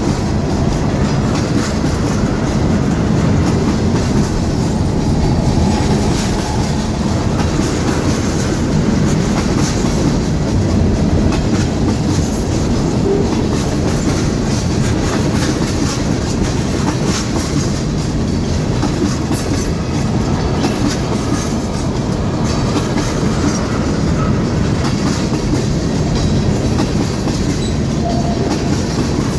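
Manifest freight train's tank cars rolling past close by at speed: a steady, loud run of steel wheels on rail with frequent clicks as the wheels cross rail joints.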